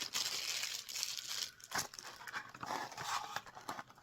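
Crinkling and rustling of ornament packaging, thin plastic and paper being handled, with many small clicks and crackles throughout.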